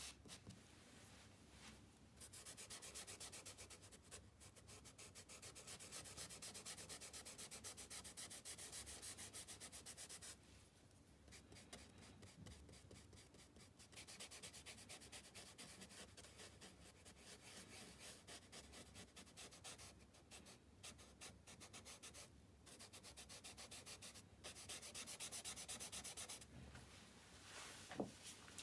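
Charcoal scraping across sketchbook paper in quick, faint back-and-forth shading strokes, coming in spells with short pauses between them.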